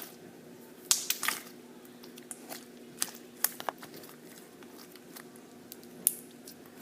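Slime being squished by hand, giving scattered sharp clicking pops: a cluster about a second in, a few more around three seconds and one near six seconds. A faint steady hum runs underneath.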